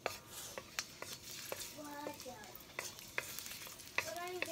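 Garlic sizzling in hot oil in a wok, stirred with a wooden spatula that scrapes and knocks against the pan many times.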